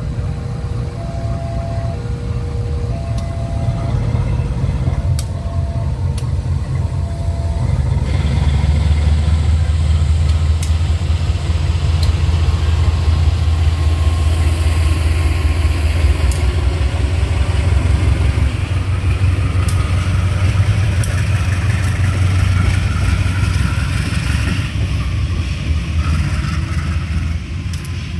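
CC203 diesel-electric locomotive's engine running with a deep hum. It grows louder about eight seconds in, holds, and eases off near the end. For the first several seconds an alternating two-note signal sounds about once a second.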